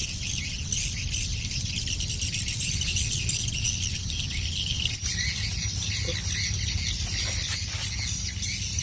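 Insects chirping in a dense high chorus, mixed with bird calls, over a steady low rumble.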